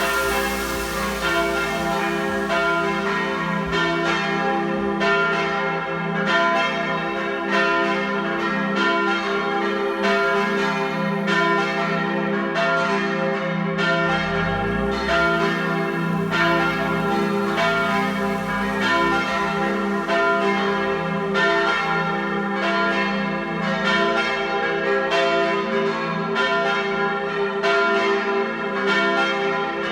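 Church bells of a parish church rung as a partial peal: several swinging bells striking in a steady, overlapping stream of strokes, calling to the Sunday evening Mass.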